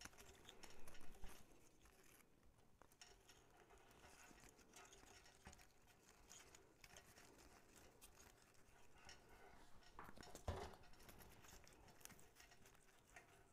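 Faint rustling and small crackles of hands working a glittered pine cone on floral wire into the ribbon and faux greenery of a lantern arrangement, slightly louder about a second in and again near ten and a half seconds.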